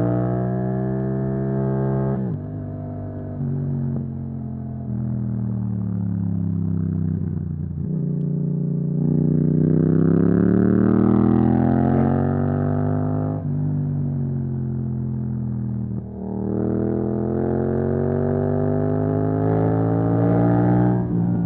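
Yamaha MT-07 parallel-twin engine through an Akrapovic exhaust, accelerating and easing off repeatedly. Its pitch climbs, drops sharply at each gear change or roll-off, then climbs again.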